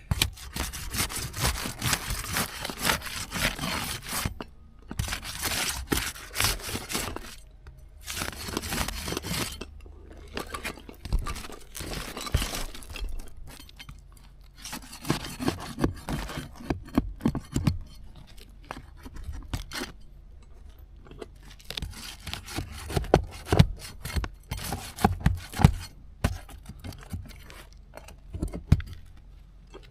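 Asphalt roof shingles being lifted and pried loose from the course below, the sealant strip tearing away with scraping, crackling sounds. The sounds come in bursts of a second or two, with sharp knocks in the second half.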